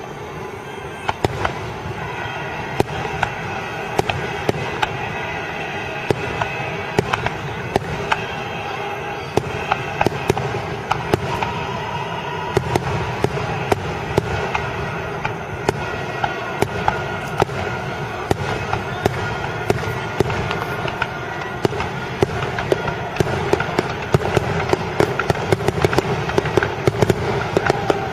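Fireworks display: a rapid, continuous run of bangs and crackling reports that grows denser near the end.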